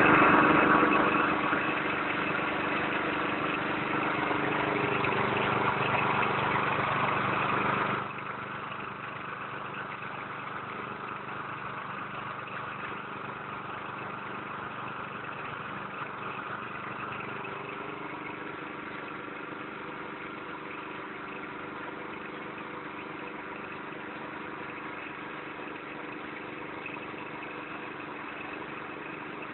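Engine-driven rice threshing machine running steadily. It becomes abruptly quieter about eight seconds in, then keeps running evenly.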